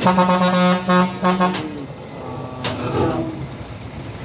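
Heavy truck's horn sounding one steady-pitched blast with a few brief breaks, lasting about a second and a half, over the truck's engine.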